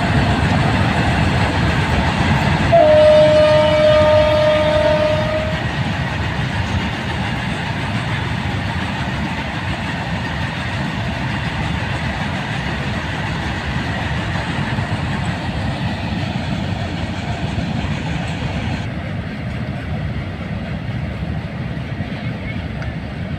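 A freight train of BCNHA covered wagons, hauled by a WAG-9HC electric locomotive, running past with a steady rumble of wheels on rail. A horn sounds once, for about three seconds, a few seconds in.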